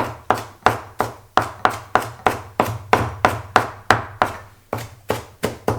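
Knife dicing red onion on a cutting board: an even run of sharp chops, about three a second.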